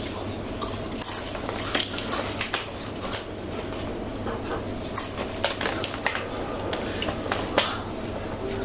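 A kitten chewing potato chips: irregular sharp crunches, over a steady low hum.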